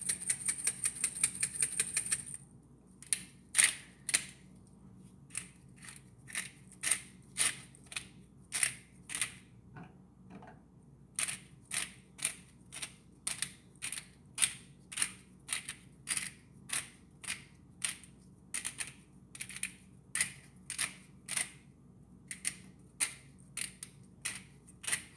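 Pepper grinder being twisted: a quick run of ratcheting clicks for the first two seconds, then a steady series of short grinding strokes, about two a second.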